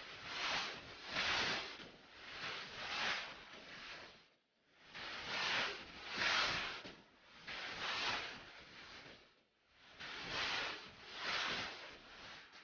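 A hiss that swells and fades about once a second, in runs broken by short gaps about every five seconds.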